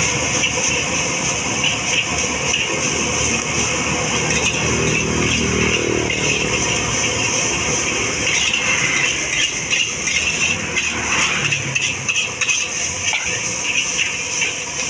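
Nasi goreng stir-fried in a steel wok: the metal spatula scrapes and clanks against the wok over and over as the rice sizzles, over the steady rush of the gas burner beneath.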